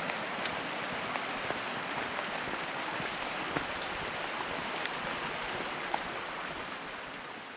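Stream water running steadily, with a few faint clicks scattered through it; the sound fades out near the end.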